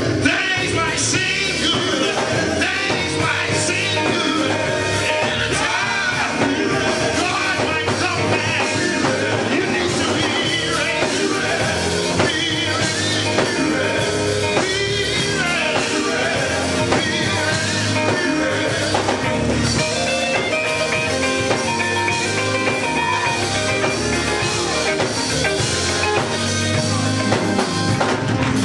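A gospel vocal group singing live, a lead voice with backing singers, over electric guitar and drums.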